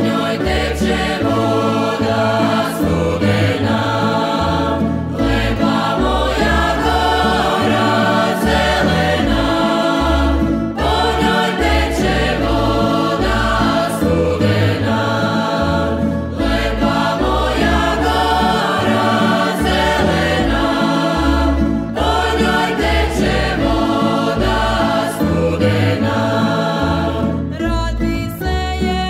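A Croatian folk ensemble's choir singing a regional folk song in phrases of about five to six seconds, over instrumental accompaniment with a moving bass line.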